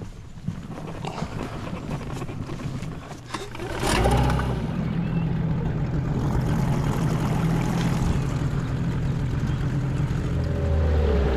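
Small boat outboard engine starts about four seconds in and then runs steadily. Its pitch swings up and down briefly as it picks up and again near the end. Before it starts there is rustling handling noise.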